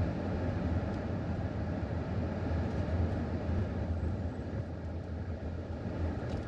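Steady engine and road noise from inside a minivan's cabin while it is driving, a low, even rumble.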